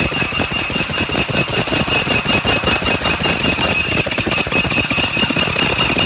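Spyder carbide-tipped hole saw on a DeWalt 24V cordless drill grinding through half-inch natural stone travertine tile. It makes a steady gritty grinding with a fast chatter and a high-pitched whine held throughout.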